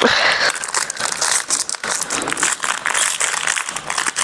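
Plastic film biscuit wrapper crinkling continuously as it is handled and turned over in the hands, a dense run of small sharp crackles.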